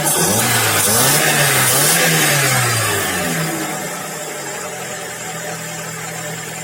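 Audi 100 C3's 1.8-litre four-cylinder carburettor engine, half warmed up, revved up and down about three times by the throttle, then dropping back to a steady idle about four seconds in.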